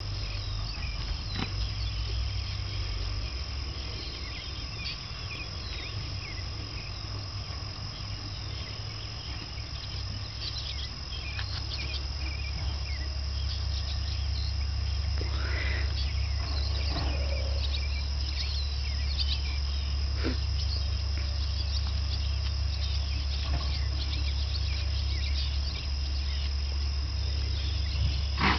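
Outdoor pasture ambience: a steady high insect-like drone, scattered short bird chirps with one louder rising and falling call about halfway through, over a steady low rumble.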